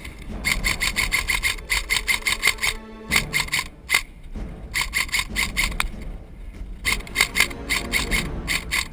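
BOLT B4A1 airsoft electric rifle firing on full auto: about six bursts of rapid shots, each half a second to a second long, with short pauses between them.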